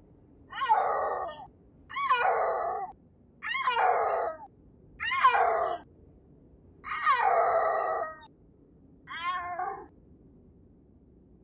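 Snow leopard calling: six drawn-out yowls, each falling in pitch, about one every second and a half, the last one shorter and higher.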